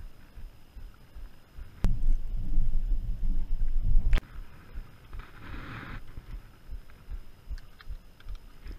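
Low rumbling noise on a camera microphone that jumps suddenly much louder for about two seconds, starting and stopping on sharp clicks. Faint ticks come near the end.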